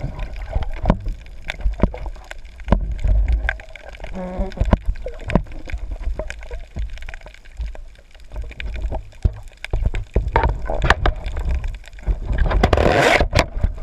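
Water sloshing and gurgling against a GoPro Hero3 in its waterproof housing, with many sharp clicks and knocks throughout and a louder rushing burst near the end.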